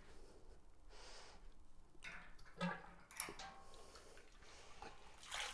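Faint knocks and gurgling as the brew kettle's valve is opened and hot wort starts to run down the transfer tubing, with a splash of liquid beginning near the end.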